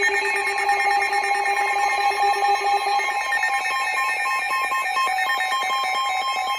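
Emergency alert tone: a steady electronic alarm of several held tones with a fast ringing flutter. About halfway through, the lowest tone stops and a pulsing tone comes in.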